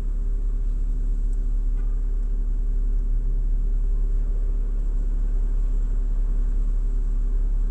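Steady low rumble with a constant hum, like a vehicle's engine or cabin noise, unchanging throughout with no distinct events.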